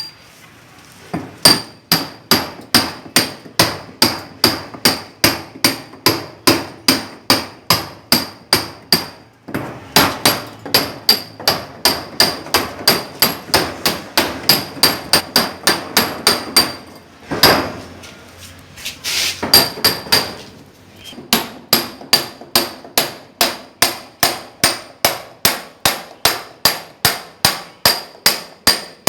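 Hammer beating on a steel chisel in a steady fast rhythm, about three blows a second, each blow with a short metallic ring. There are brief pauses and one longer break about two-thirds of the way through, where two heavier, duller blows come.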